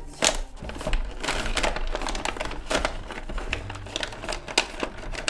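Toy packaging crinkling and crackling as it is handled and opened, in a run of irregular sharp rustles.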